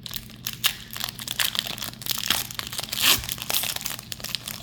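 Foil wrapper of a Pokémon card booster pack crinkling in the hands as it is torn open, with a louder crackle about three seconds in.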